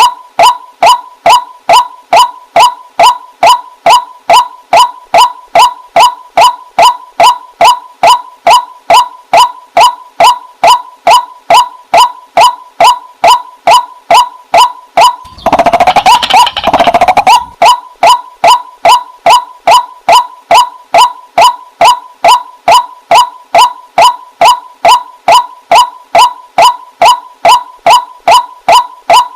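White-breasted waterhen (burung wak-wak) calling a steady, evenly repeated series of 'kwak' notes, about two to three a second, with a harsher, noisier stretch of about two seconds halfway through.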